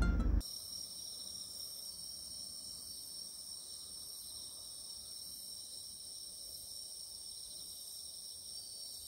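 Night insects, crickets, chirring in a steady high-pitched chorus with a faint regular pulse.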